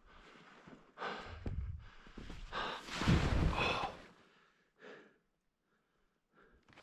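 A skier's skis sliding and scraping through snow, then a fall into the snow with loud gasping breaths a little past the middle. After that it goes almost still.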